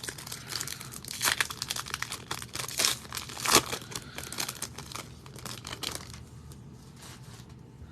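Crinkly plastic trading card pack wrapper being torn open and crumpled by hand, a dense run of crackling that is loudest about three and a half seconds in and dies away after about six seconds.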